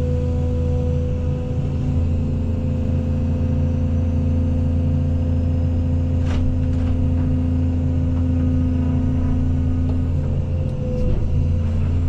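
Case CX220E excavator's diesel engine running at a steady, even speed with a low hum, and a couple of faint knocks about halfway through.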